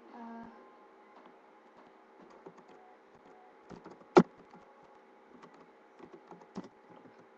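Laptop keyboard typing: scattered, irregular key clicks with one sharper, louder click about four seconds in, over a faint steady hum.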